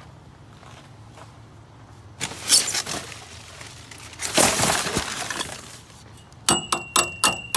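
Scrap metal clattering as it is handled and tossed, in two rattling bursts, then about six sharp ringing clinks of metal striking metal near the end.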